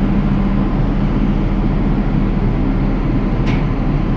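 An engine running steadily with a low hum. There is a short click about three and a half seconds in.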